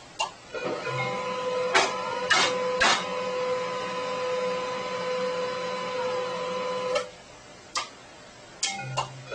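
Desktop printer running: a steady motor whine with sharp mechanical clicks in the first three seconds, stopping about seven seconds in, followed by a few separate clicks.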